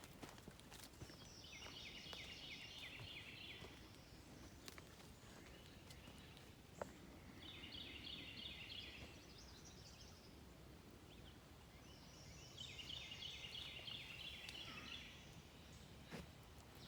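A bird singing three times, each song a quick run of repeated high notes lasting about two seconds, over faint outdoor background noise.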